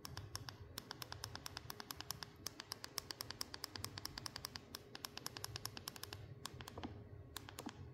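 Rapid clicking of the Google Pixel 9 Pro XL's side buttons, power key and volume rocker, pressed over and over by a thumb: many small sharp clicks a second, with a few short pauses near the end.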